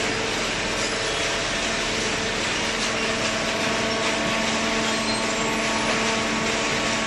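Hydraulic baling press running: a steady motor-and-pump hum with an even hiss over it, holding a constant level.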